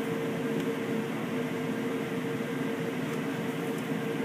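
Steady hum of commercial kitchen machinery, with a constant mid-pitched tone running through it.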